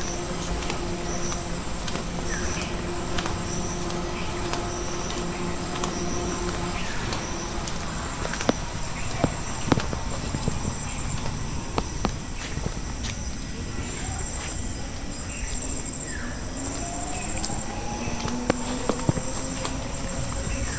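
Insects chirring steadily at a high pitch, with a pulsing call repeating beneath it and scattered light clicks.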